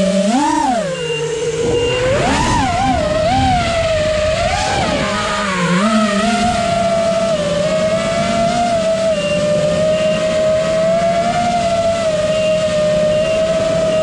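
FPV quadcopter's motors and propellers whining, heard through its onboard camera. The pitch swoops up and down quickly with the throttle for the first several seconds, then settles into a steadier whine.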